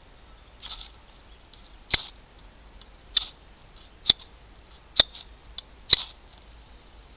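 A ferrocerium rod (firesteel) scraped hard along a knife's spine, throwing sparks. There are six short rasping strikes, roughly one a second, with the second the loudest.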